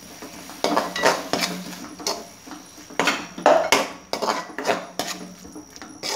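Metal slotted spoon scraping and knocking against the bottom of a kadhai while stirring a thick yogurt-and-spice paste, in a string of irregular strokes, loudest about three and a half seconds in.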